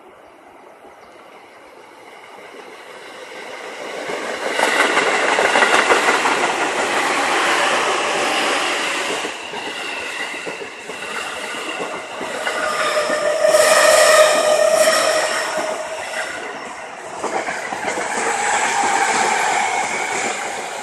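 Electric trains passing close by: a limited-express train rushes past with wheels clattering over the rail joints, and a steady whine rises in the middle, followed by a commuter train running by. The noise builds over the first few seconds and stays loud.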